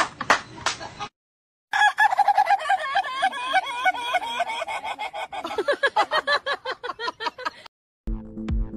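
A man imitating a rooster crowing: one long, wavering, warbling call lasting about six seconds. It is preceded by about a second of a shrieking voice, and music comes in near the end.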